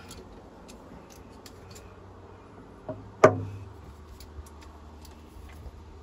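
Faint scattered clicks, then a single sharp knock about three seconds in with a short ringing tail, just after a lighter tap.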